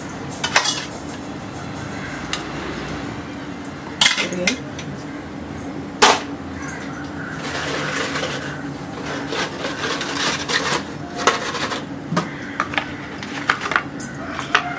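A metal spoon clinking and scraping against stainless-steel dishes as food is served: sharp clinks about half a second, four and six seconds in, then scattered lighter taps, over a steady low hum.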